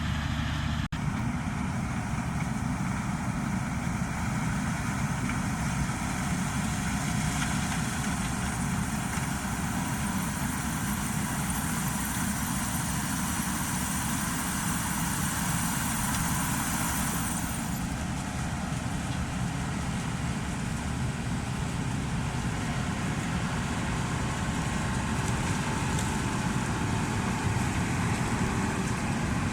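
Combine harvester running steadily in corn harvest, a dense, even mechanical din. About two-thirds of the way through a high hiss drops away while the machine keeps running.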